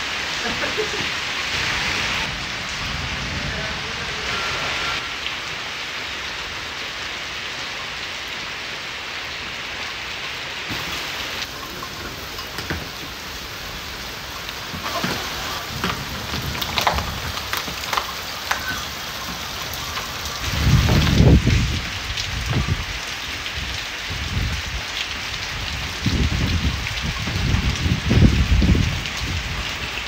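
Steady heavy rain falling on leaves and a slate roof. In the second half there are deep low rumbles, one about two-thirds of the way in and several more near the end.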